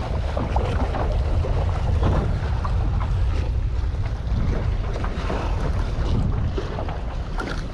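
Wind buffeting the microphone with a steady low rumble, over water lapping against a kayak hull and scattered small knocks and clicks.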